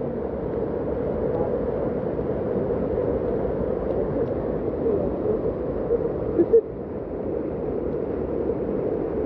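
Floodwater of a swollen, muddy river rushing and churning: a steady, dull rush of water with small gurgles.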